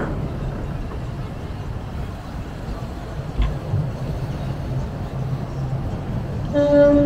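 Low, steady engine rumble of a motor yacht passing close below. A single thud comes about halfway through, and a horn sounds briefly near the end.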